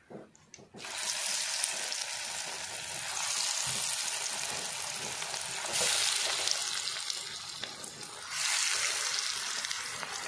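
Battered chicken kabab pieces deep-frying in hot oil, sizzling. The sizzle starts suddenly about a second in as the pieces hit the oil, and gets louder in steps around three, six and eight seconds.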